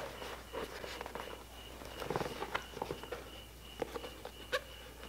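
Miller welding helmet being pulled down and flipped up on its headgear: scattered light clicks and taps from the pivot and shell, with soft rustling of a heavy welding jacket and gloves.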